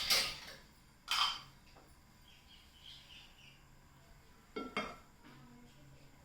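A few short clinks and knocks of kitchen utensils against pots and pans: one at the start, another about a second in, and a quick double knock near five seconds.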